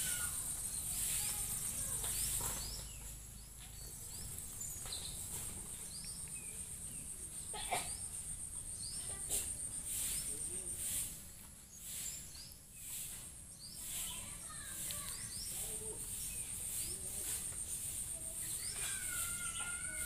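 Rural outdoor ambience: a steady high-pitched insect buzz runs throughout, with scattered short bird chirps and a couple of sharp clicks around the middle.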